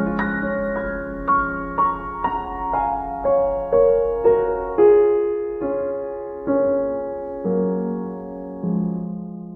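Background piano music: a slow, gentle melody of single notes that slows toward the end and closes on a held chord dying away.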